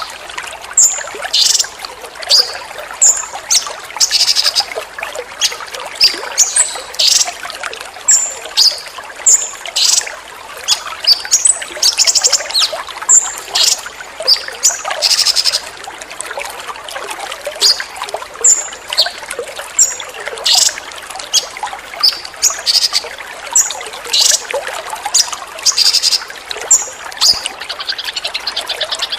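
Small songbird giving sharp, high-pitched call bursts and quick chirps, one every second or so, over steadily trickling water.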